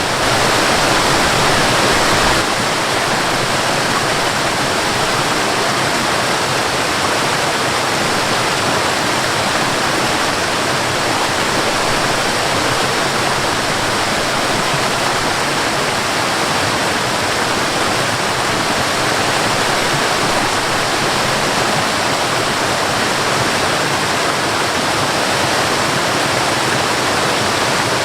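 Waterfall rushing steadily, a continuous roar of falling water, a little louder for the first couple of seconds.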